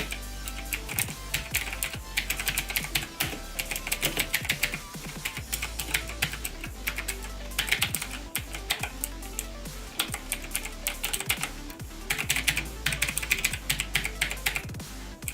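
Motospeed CK104 mechanical keyboard with blue switches being typed on in quick bursts, each key giving a sharp click. The clatter is the loud noise typical of blue switches.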